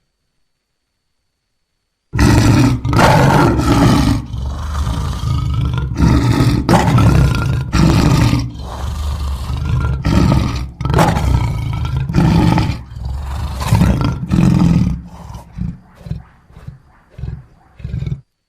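African lion roaring. A bout of loud, deep roars begins about two seconds in and tapers near the end into a series of shorter, quieter grunts.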